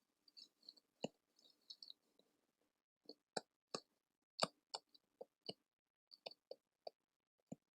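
Quiet, sparse crackling: sharp little clicks and pops close to the microphone, separated by short silences, coming thickest about halfway through.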